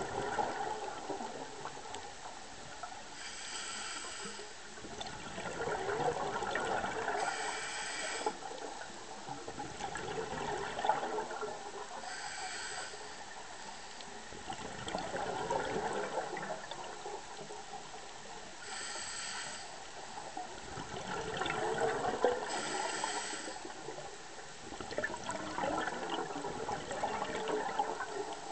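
Scuba diver breathing through a regulator underwater: a short hissing inhale every four to six seconds, each followed by the bubbling rush of the exhale.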